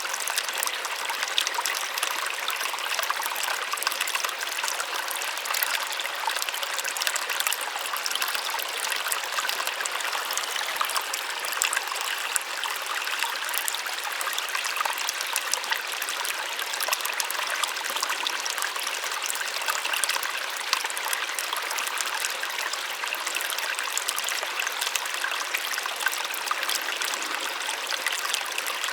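Small waterfall splashing and trickling: a steady, bright rush of falling water with little depth.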